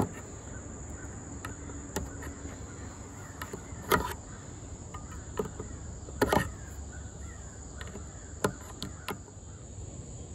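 A screwdriver prying at the lid of a metal wood-stain can: a few sharp metal clicks and knocks, the loudest about four and six seconds in. Crickets chirp steadily and high-pitched behind it.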